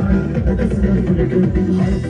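Upbeat music with a steady beat and strong bass.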